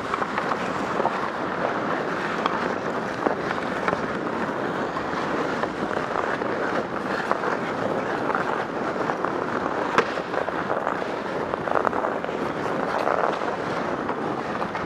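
Ice rink activity: skates scraping and carving the ice, with scattered sharp clacks of hockey sticks on the puck and boards over a steady rushing noise, and one louder crack about ten seconds in.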